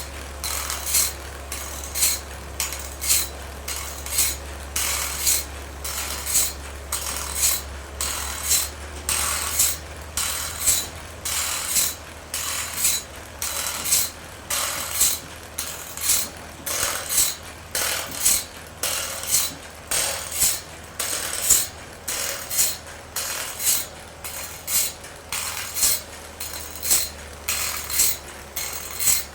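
Sawmill machinery clicking in a steady rhythm, about one and a half sharp clicks a second, over a low hum that fades about twelve seconds in.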